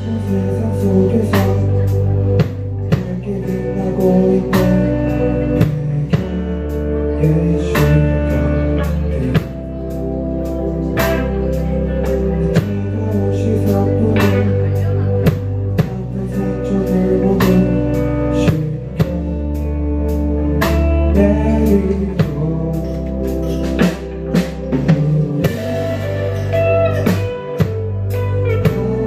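A live rock band playing: electric guitars, electric bass and drum kit, with a steady drum beat.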